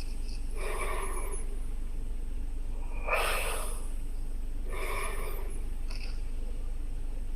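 A person snoring in rasping, snorting snores, three clear ones about a second and a half to two seconds apart and a faint short one after, over the steady low hum of a car cabin.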